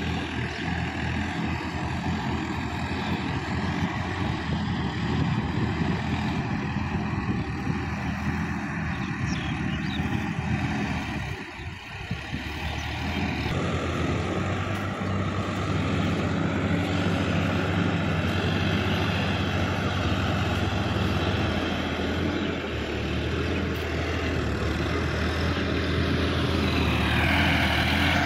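Farm tractor diesel engine running steadily while tilling a wet rice paddy, a little louder near the end.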